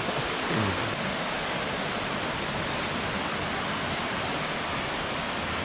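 Steady rush of a mountain stream tumbling down a gorge over waterfalls.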